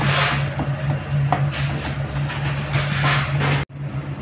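Kitchen knife chopping green chillies and garlic on a plastic cutting board, a series of strokes over a steady low hum. The sound breaks off abruptly near the end.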